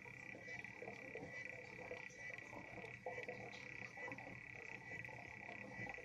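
African clawed frog (Xenopus) calling: a fast clicking trill held at one high pitch, running almost without a break in short linked stretches, with fainter lower-pitched sounds underneath.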